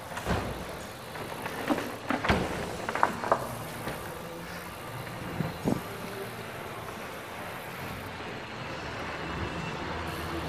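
Mountain bike rolling along a dirt track, a steady rush of tyre and air noise. About six sharp rattles and knocks come from the bike in the first six seconds.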